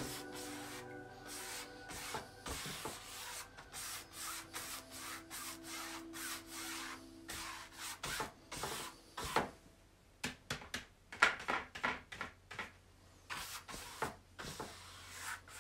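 Wide flat paintbrush scrubbing acrylic paint across a canvas in brisk, irregular strokes, with a short pause about two-thirds of the way through and then a quicker flurry of strokes.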